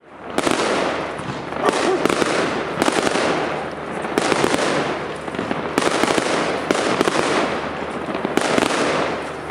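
Fireworks display going off: sharp bangs from bursting aerial shells and launching comets about every second, over a continuous dense crackle.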